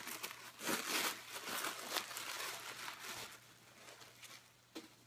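Packaging crinkling and rustling in irregular bursts as clothing is unwrapped from a shipping box. It fades toward the end, with one short click near the end.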